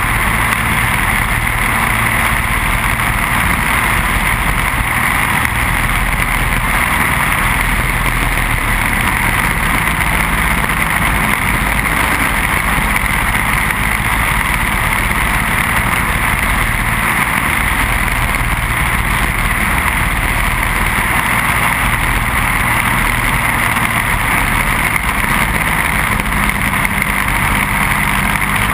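Racing kart's Briggs & Stratton Animal single-cylinder four-stroke engine running hard at race speed, steady throughout, mixed with the rush of wind over the onboard camera.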